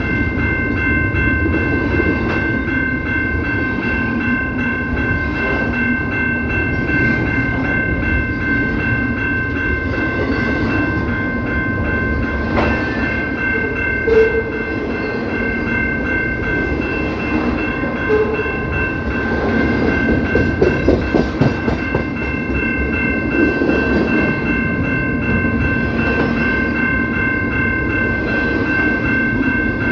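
Train passing with a continuous rumble and rattle of the cars, while a multi-note horn chord is held steadily the whole time. A run of quick clattering thuds comes about two-thirds of the way in.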